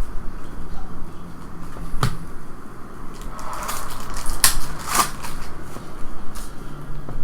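Trading card packs and cards being handled: rustling and crinkling with a few sharp clicks, about two seconds in and twice more near the middle.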